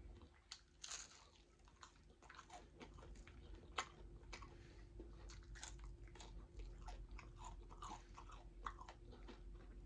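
A person chewing and crunching fried fish close to the microphone: quiet, with many short crackles and wet mouth clicks scattered irregularly.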